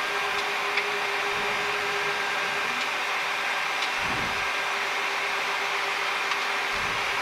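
Steady cockpit noise of a jet airliner taxiing at idle: an even hiss with a faint steady hum, broken by a brief low thump about four seconds in and another near the end.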